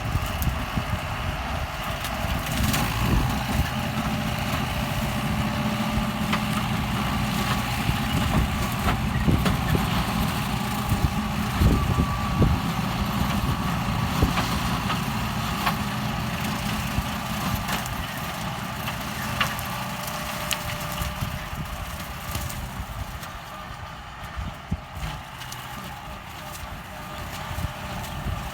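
Kubota M9540 tractor's diesel engine running steadily while its rotary tiller chops pineapple plants into the soil, with scattered sharp cracks and knocks from the shredding. It gets somewhat quieter over the last few seconds.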